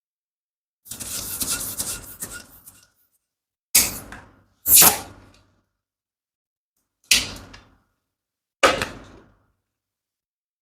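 Latex balloon rubber being handled and worked, with about two seconds of rubbing and squeaking, then four sharp, sudden sounds that die away quickly, the second of them the loudest.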